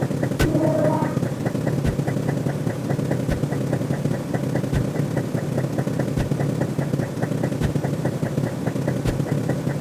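Electronic sci-fi sound effect: a steady, low rumbling drone with fast, even ticking over it and a sharp click about every one and a half seconds. A short tone chirps about half a second in.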